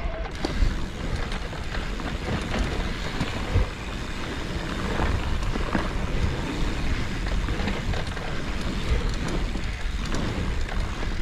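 E-mountain bike rolling along a dirt forest trail: a steady rumble of tyres over dirt and rocks with scattered knocks and rattles from the bike, and wind noise on the camera microphone.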